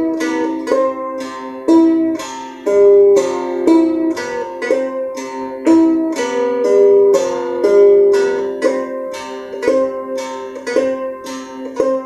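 Instrumental music played on a plucked string instrument: a simple melody of ringing plucked notes, about two a second.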